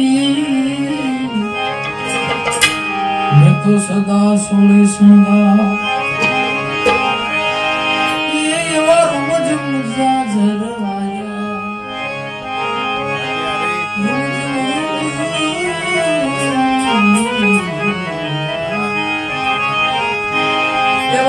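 Harmonium playing sustained reedy chords with tabla strokes, as accompaniment to a Gujarati santvani devotional song. A man's voice comes in at times with long, bending sung phrases.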